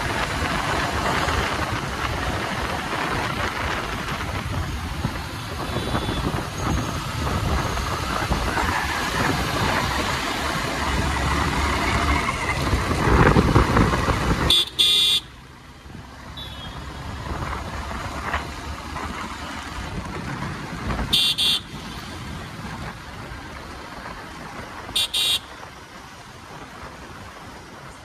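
Motorcycle riding through city traffic: steady wind and engine noise, louder and rising for the first half, then dropping suddenly about halfway through. Short horn toots, some in quick pairs, sound a few times in the quieter second half.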